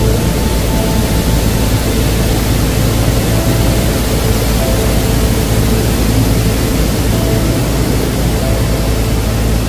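Steady, loud rush of fast-flowing river water over rapids and a weir, with faint sustained music notes beneath it.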